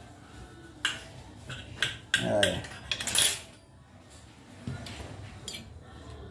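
Kitchen knife clinking and scraping against the plate while slicing a cake: a few sharp clicks, then a louder scrape about three seconds in. A brief voice sound is heard in between.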